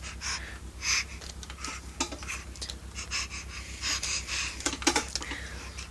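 A dog snoring: short, noisy breaths at uneven intervals, roughly one every second or so.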